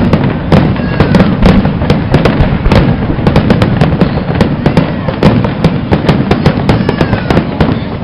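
Aerial fireworks going off in quick succession: several sharp bangs a second from bursting shells, with crackling and a low rumble between them.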